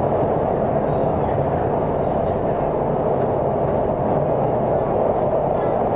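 Steady running noise inside a CNR Changchun-built metro train car travelling between stations: wheels on the track and air rushing past, constant in level.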